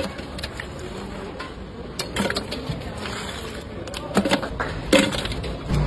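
Chunks of ice dropped by hand into a steel cylinder, knocking against the metal and the ice inside: three or so sharp clunks, about two seconds in, four seconds in and near the end.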